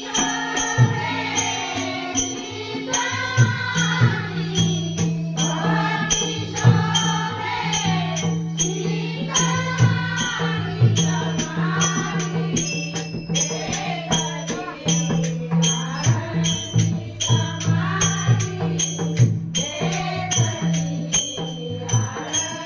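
A woman singing a Marathi devotional abhang in a bhajan, over a steady low drone and regular jingling percussion beats.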